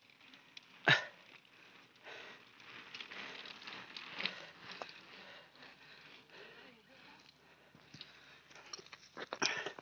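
Mountain bike ridden past on a concrete road: a hiss of tyres and small clicks that swells as it comes closest, with one sharp knock about a second in and a run of knocks and rustles near the end.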